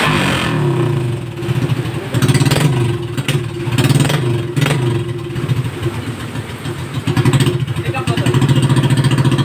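RS 125 motorcycle engine running through an open muffler, idling with the throttle blipped several times so the exhaust note swells and falls back.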